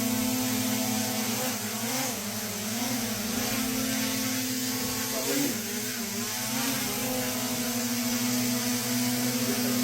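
DJI Mini 3 quadcopter's propellers buzzing in flight, a steady pitched hum whose pitch wavers up and down for a few seconds in the middle as the motors change speed.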